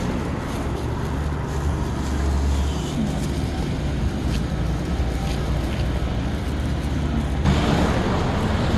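Steady outdoor city street noise: a low rumble of wind and traffic on a handheld phone microphone, turning hissier near the end.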